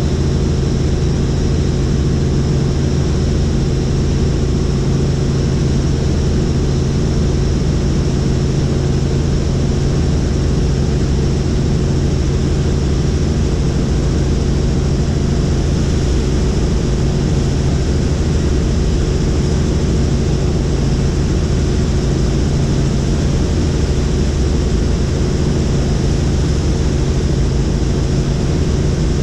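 Helicopter in flight heard from inside the cabin: loud, steady rotor and engine noise with a deep hum and a faint high whine that hold unchanged throughout.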